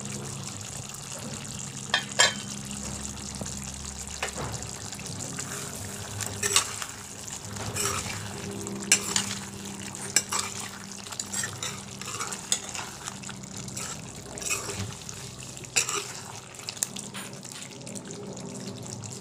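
Jackfruit curry bubbling and sizzling in a metal karahi over a steady low hum. A metal spoon scrapes and knocks against the pan a dozen or so times as the curry is stirred.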